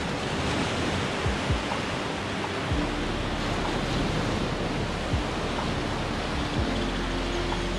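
Small ocean waves breaking and washing up a sandy beach in a steady rush of surf, with a few brief low thumps scattered through it.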